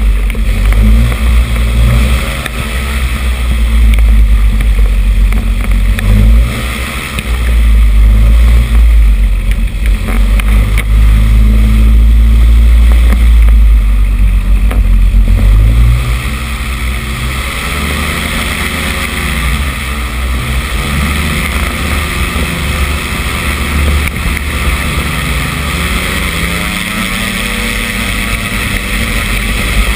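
Flexwing microlight trike's engine and propeller running on the ground, the pitch rising and falling several times with the throttle. Under it is a heavy low rumble of wind on the microphone. It gets somewhat quieter about halfway through.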